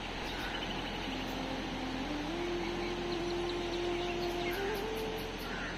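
Steady rushing of a fast, muddy flood-swollen river, with slow held notes of background melody stepping gradually upward in pitch.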